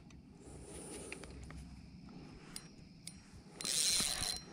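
Spinning reel cranked fast, a short whirring with a thin whine lasting under a second near the end, as a hooked channel catfish is reeled in. Before that, only a few faint ticks.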